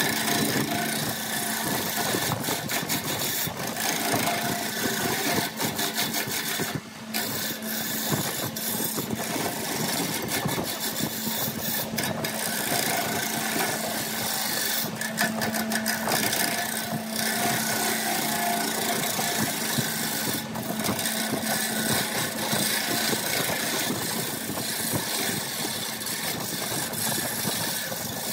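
Wood lathe running with a turning tool cutting into a spinning wooden blank: a continuous rough, scraping cut over the steady hum of the lathe. The cutting noise drops off briefly about seven seconds in.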